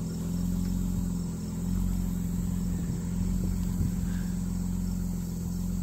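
Jeep Wrangler JL engine running steadily at low speed as the Jeep crawls slowly off-road. Crickets chirp faintly behind it.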